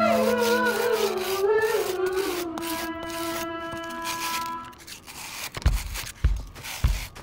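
A guitar note with a wavering bend fades out over the first four seconds or so. Then a cleaver's steel blade is rubbed on wet sandpaper over a wooden board, a few rough scraping strokes about half a second apart, each with a dull knock.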